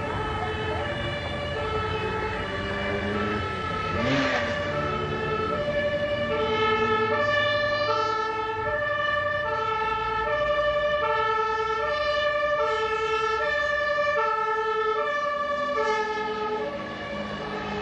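Two-tone siren alternating evenly between a high and a low note, about a second each, over a low steady rumble. A short noisy burst comes about four seconds in.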